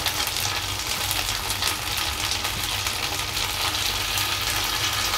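Meatball skewers brushed with margarine and a sweet-spicy sauce glaze sizzling steadily on a hot ridged nonstick grill pan over low heat, with a fine crackle.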